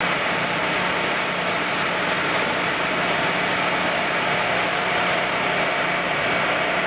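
Steady noise of running machinery in a power-plant turbine hall: an even rush with a few faint steady hums in it.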